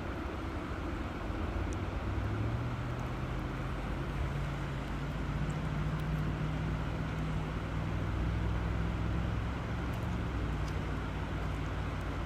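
River water flowing with a steady rush. A low motor hum comes in about two seconds in and eases near the end.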